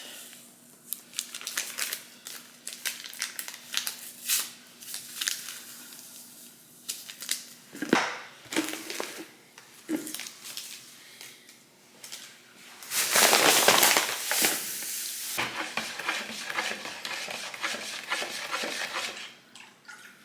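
Kitchen handling sounds: dishes, containers and utensils clinking and knocking as they are set down and moved, many short sharp knocks. A little past the middle comes a louder rush of noise lasting about two seconds, followed by softer rustling.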